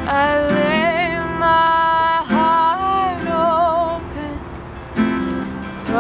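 A woman singing a slow worship song in held, wavering notes over a strummed acoustic guitar, in phrases with short breaks between them.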